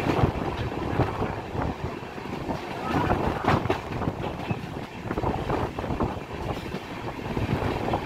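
A train running on the rails: a steady rumble with frequent, irregular clacks of the wheels over the track.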